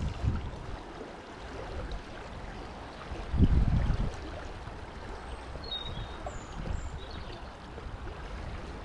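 River water flowing steadily, with a brief low rumble on the microphone about three and a half seconds in.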